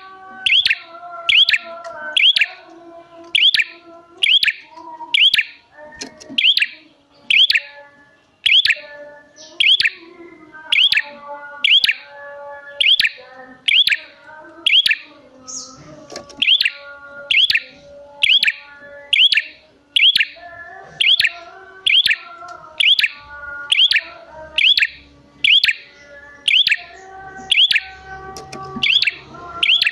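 Prenjak song used as a lure: a loud, sharp chirp repeated over and over, a little more than once a second, with softer, lower warbling notes underneath.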